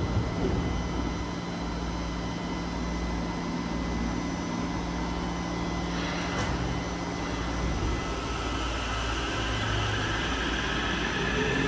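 Underground metro train standing at the platform behind closed screen doors: a steady hum and hiss of its running equipment, with a single click about six seconds in. Near the end the motors' electric whine begins to rise in pitch as the train starts to pull away.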